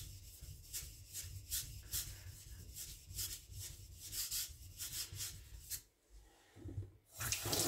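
Victorinox Chinese cleaver stroked back and forth on a sharpening stone, a light rhythmic scraping at about two to three strokes a second that stops about six seconds in. The blade is being thinned, with almost no pressure, removing metal behind the edge. A louder noise follows near the end.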